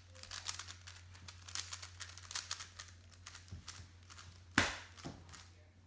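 Plastic being handled, with quick crinkles and clicks, then one sharp knock about four and a half seconds in, followed by a couple of lighter knocks.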